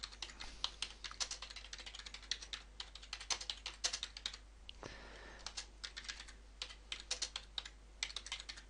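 Typing on a computer keyboard: a quick, irregular run of key clicks, with a brief pause about halfway through.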